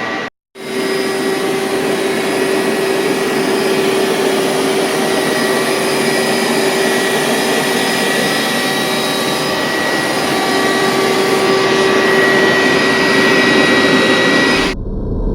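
1999 Hoover SteamVac Widepath carpet cleaner running: a loud, steady whir with a steady whine in it, broken by a brief silence just after the start. Near the end it cuts off suddenly, leaving a low hum.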